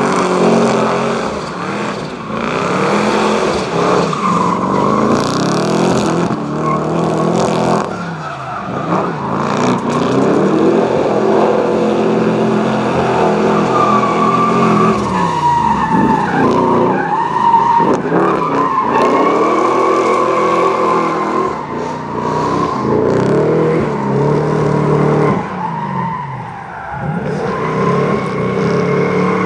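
A drift car's engine revving hard, rising and falling again and again, as the car slides sideways with its tyres spinning and squealing.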